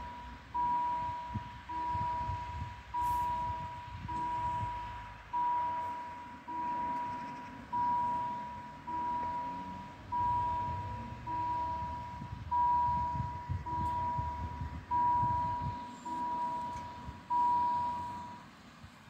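Railway level-crossing warning bell ringing about once a second, each chiming stroke dying away, while the crossing barriers lift; it stops near the end. A low rumble runs underneath.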